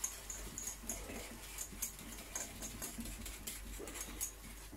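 Wire whisk stirring sauce in a small metal saucepan, the wires clicking and scraping against the pan in quick, uneven light strokes, about three a second.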